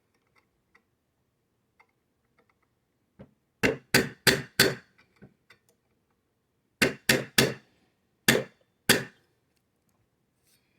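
Hammer tapping a part into an AR-15 lower receiver to seat it evenly: nine sharp metallic taps in three quick groups, four, then three, then two, with pauses between.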